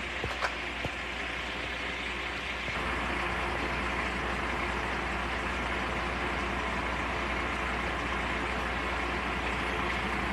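Large truck engine idling steadily, growing a little louder about three seconds in, with a few faint clicks near the start.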